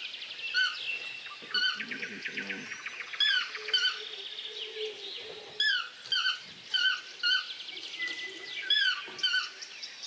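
Toucan calling: about a dozen short notes that rise and fall in pitch, repeated irregularly once or twice a second, over a background of fast chirping trills from other birds or insects.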